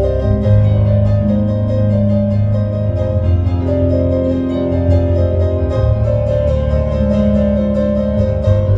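Piano played with fast repeated chords in the right hand over sustained, rolling bass chords.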